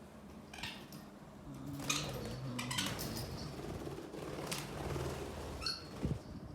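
Young budgies bathing: a handful of short, sharp chirps and splashes scattered through a few seconds, over a low steady hum.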